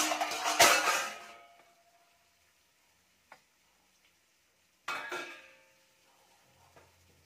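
Stainless steel plates clattering as they are lifted and set down on a gas stove: a ringing clatter at the start and another about five seconds in.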